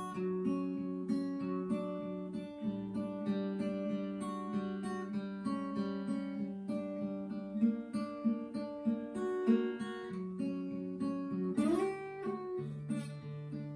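Cort acoustic guitar fingerpicked: a steady run of single notes alternating between two strings, about three to four a second, with a slide up the neck near the end.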